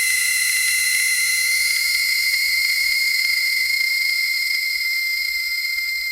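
Post-surgery patient-monitor ambience sound effect: a loud, steady high-pitched tone over a hiss, cutting in suddenly and holding without a break.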